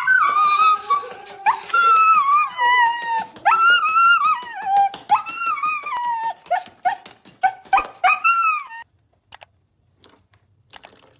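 Husky whining and yowling in a fast run of high calls, most of them gliding down in pitch, which stop about nine seconds in.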